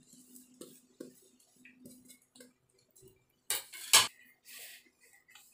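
Hand mixing spices and chopped onion into dry flour in a bowl: soft rustling and small clicks, then a few louder knocks about three and a half seconds in, the loudest a sharp ringing clink against the bowl.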